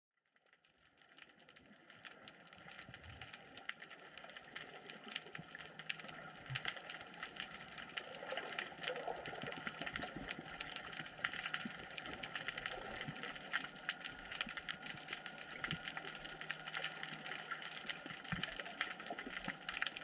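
Underwater ambience in a kelp-forest sea: a dense, constant crackle of tiny clicks over a steady low hum, fading in over the first couple of seconds.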